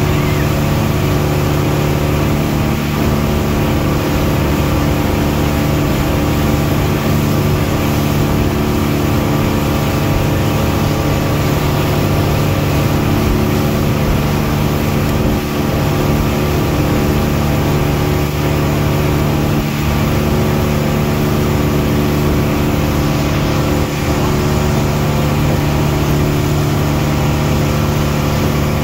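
A motorized outrigger banca's engine running steadily under way, heard on board as an even drone with a steady hiss over it.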